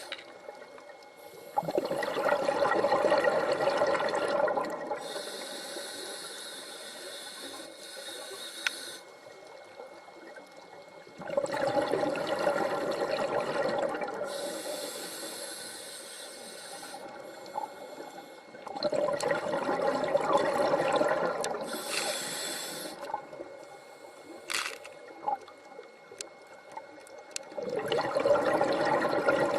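Scuba diver breathing through a regulator: a high hiss on each inhale and a loud bubbling rush on each exhale, about every eight seconds, four exhales in all.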